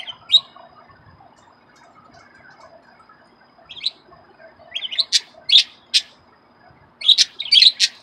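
Pet budgerigars giving short, sharp chirps: two at the start, one just before four seconds, then quick runs of chirps from about five to six seconds and again near the end. The chatter is a hen budgie begging her mate to feed her.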